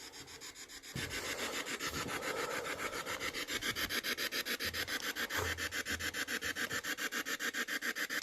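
Spirit box scanning through radio frequencies, giving rapid, evenly pulsing white-noise static with no voice coming through. It gets louder about a second in.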